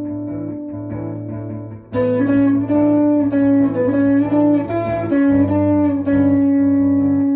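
Ibanez Gio electric guitar with dual humbuckers being played. A held chord rings and fades, then about two seconds in a new chord is struck and a line of single notes is picked over notes that keep ringing.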